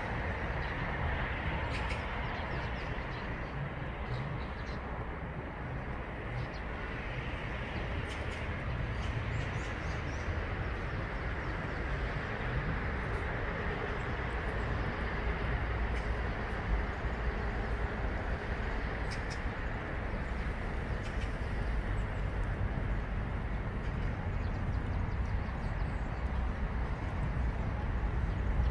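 Steady outdoor background noise with a strong low rumble, and a few faint short high sounds now and then.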